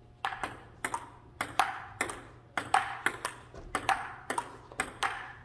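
Table tennis rally: the celluloid ball clicking off the table and the paddles in quick pairs, about one pair every half second, with a short hollow ring after each hit.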